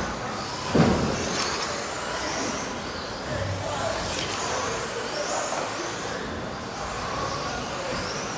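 Electric radio-controlled racing trucks' brushless motors whining, rising and falling in pitch as they accelerate and brake around the track. A single sharp thump comes a little under a second in.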